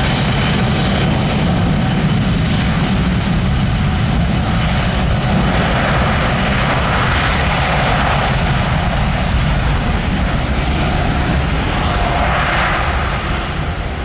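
Boeing 787-9's twin turbofan engines running up as the airliner lines up and sets off on its takeoff roll: a loud, steady rumble with a hiss over it, falling away slightly near the end as the jet moves off down the runway.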